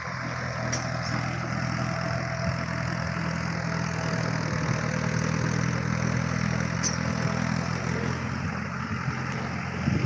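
Tractor engine running steadily, a low even hum with no change in speed.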